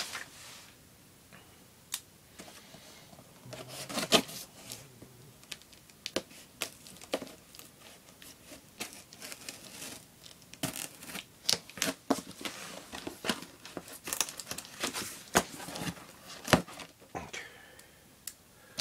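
Knife slitting the packing tape on a cardboard box: a run of short scraping and tearing strokes, with a few sharp knocks as the box is handled.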